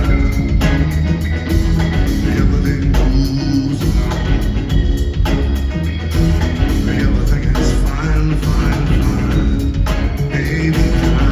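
Rock band playing live, loud and continuous, with a heavy low end of bass and drums.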